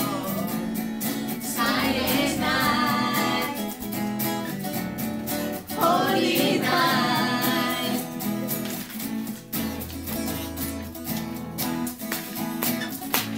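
Live amateur music: a woman singing, accompanied by a strummed acoustic guitar and an electric guitar played through a small amplifier. She sings in phrases, and her voice drops out in the last few seconds while the guitars keep strumming.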